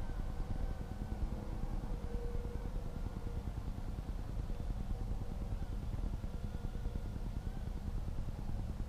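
Steady wind noise on the microphone, with a faint whine from the JJRC H32GH micro quadcopter's motors flying, its pitch wavering up and down as the throttle changes.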